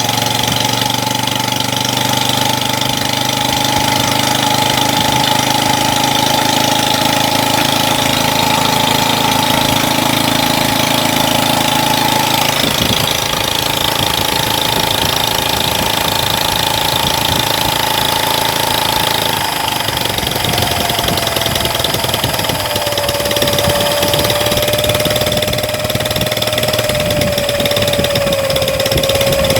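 Small homemade four-stroke engine converted from a refrigerator compressor and running on gas fuel, running steadily with a whining tone. Its speed drops in a step about 12 seconds in and again about 19 seconds in, then keeps sinking slowly.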